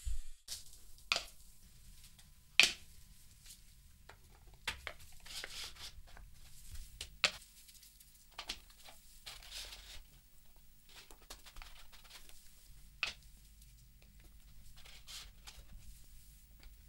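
Hard plastic marble-run pieces being fitted together and set down on a table: scattered clicks and knocks, the loudest about two and a half seconds in, with faint rustling and rubbing between them.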